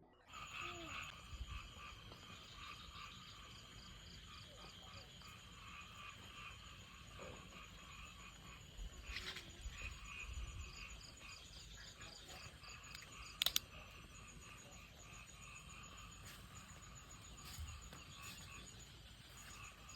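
A chorus of frogs calling, with repeated croaks that go 'wok wok wok' alongside a high, fast ticking trill. A single sharp click sounds about thirteen and a half seconds in.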